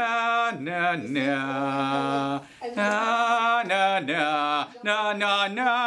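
A man singing in a strong voice: held notes with vibrato, broken by falling swoops, with two short breaks.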